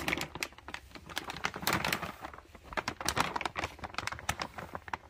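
Plastic dry cat food bag crinkling with irregular crackles as it is handled and cut open across the top with scissors.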